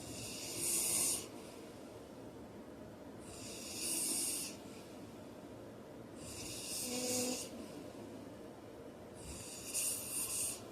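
A heavy-set man snoring in his sleep: four breathy snores about three seconds apart, the third with a faint hum in it.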